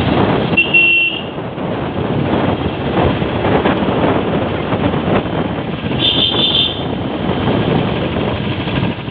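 Royal Enfield Classic 350 motorcycle ridden along a road, a steady run of engine and road noise. A horn toots briefly twice, about half a second in and again about six seconds in.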